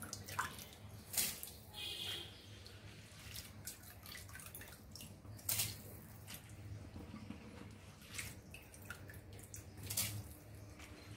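Spiced water boiling in an aluminium pot, with three sharp splashes as handfuls of soaked rice are dropped in: about a second in, midway, and near the end.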